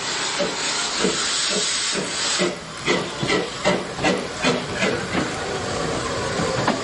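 Steam locomotive sound: a steady hiss of steam, then rhythmic chuffing at about two and a half beats a second.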